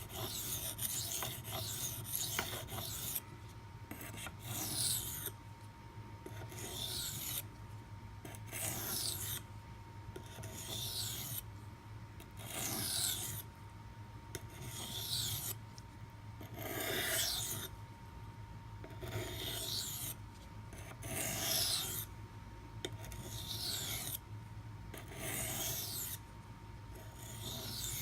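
Knife blade of Maxamet steel drawn across a 400-grit CBN waterstone in light-pressure finishing passes. Each pass is a gritty, hissing scrape, coming evenly about every one and a half to two seconds.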